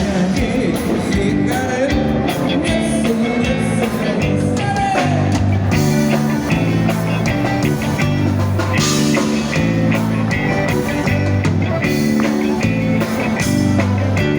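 Music with a steady beat and repeating bass notes.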